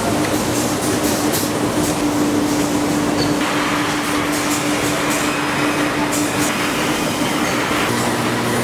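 Steady mechanical noise of tennis-ball factory machinery with a constant hum, which fades out about two-thirds of the way through. The noise changes abruptly a little over three seconds in and again near the end.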